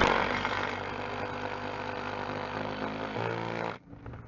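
Power driver with a socket driving a 3-inch lag bolt through a steel rail foot into a wooden rafter: the motor runs steadily, its pitch shifts about three seconds in as the bolt seats, then it stops.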